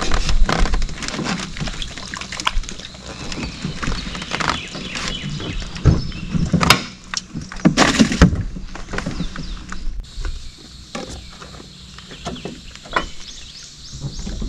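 Irregular clicks and knocks from handling tackle and the fish in a small aluminum boat while a hook is worked out of a bream that has swallowed it deep. A few louder knocks come in the middle, and it goes quieter near the end.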